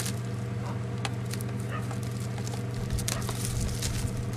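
Plastic packaging crinkling and crackling in irregular small clicks as the wrapping is torn and a mess kit is pulled out of it, over a steady low hum.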